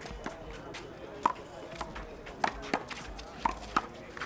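A one-wall handball rally: a rubber handball slapped by hand and smacking off the wall and the pavement, a string of sharp slaps at uneven spacing, sometimes two within a third of a second.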